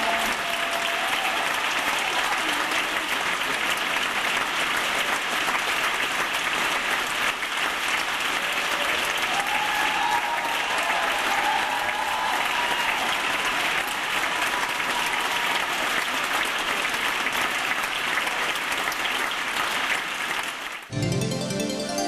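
Sustained applause from a crowd, steady and dense, with a few voices calling out about halfway through. About a second before the end it cuts abruptly to music.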